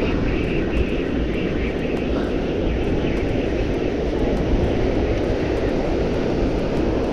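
Strong gusting wind buffeting the microphone in a steady, loud rumble, with surf from a big swell beneath it.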